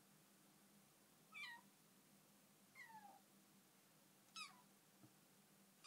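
Bengal kitten giving faint, short squeaky meows, each falling in pitch, about one every second and a half.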